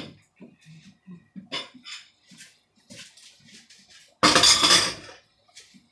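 Dishes and cutlery clattering as they are handled: a sharp knock at the start, soft scattered knocks, then a louder clatter lasting under a second about four seconds in.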